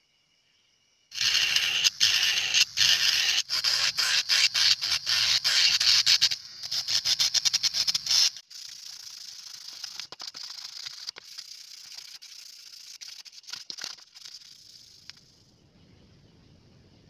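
Mini rotary grinder with a sanding drum grinding the plastic body of a gas lighter. It is loud and harsh with many brief breaks, starting about a second in, then drops to a quieter steady hiss about eight seconds in and fades out near the end.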